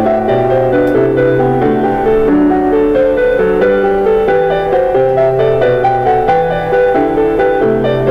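Background piano music: a steady flow of melody notes over longer-held bass notes.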